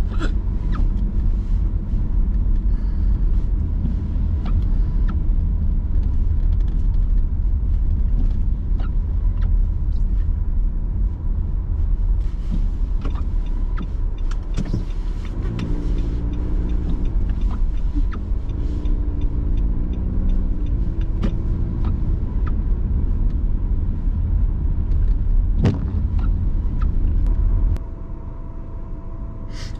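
Car driving on a snow-covered road, heard from inside the cabin: a steady low rumble of tyres and engine with scattered small knocks. The rumble drops off sharply near the end as the car slows to a stop.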